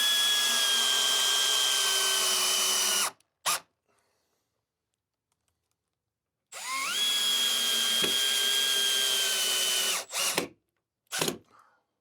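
Power drill driving screws: the motor spins up and runs steadily for about three seconds, stops, and gives a short burst; this happens twice.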